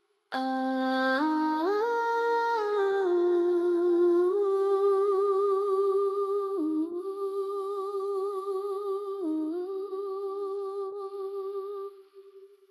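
A single voice humming a slow wordless melody unaccompanied: the pitch climbs in steps over the first two seconds, settles into a long held note with vibrato, dips briefly twice, and fades out shortly before the end.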